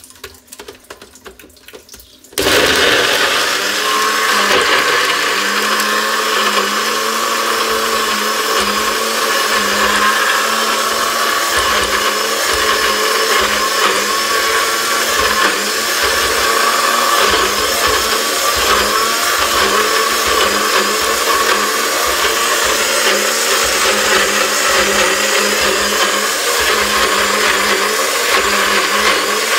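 Compact personal bullet-style blender, its cup pressed down onto the motor base, starting abruptly about two seconds in after a few light clicks and then running steadily. It is blending a whole lemon with peel, ginger, apple and habanero, a mix that is a little hard to blend.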